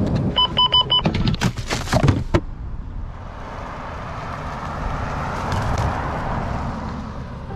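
A quick run of four short electronic beeps and a few sharp clicks and knocks of handling packaging, then a GMC Safari van driving past on a paved road, its sound swelling and then fading.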